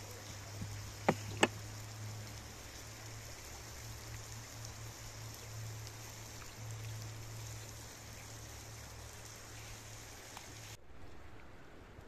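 A kitchen knife cutting a lemon on a wooden cutting board, the blade knocking the board twice in quick succession about a second in, over a steady faint hiss.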